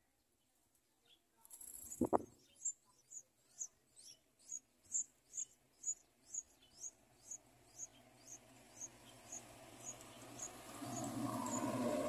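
Yellow-vented bulbul nestlings begging from the nest: a regular series of thin, high peeps at about two a second, fading gradually. A brief flutter or rustle about two seconds in, and a rustling noise builds near the end.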